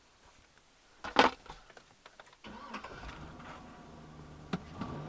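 A knock about a second in, then a Chevrolet/GMC full-size truck engine starts about two and a half seconds in and settles into a steady idle.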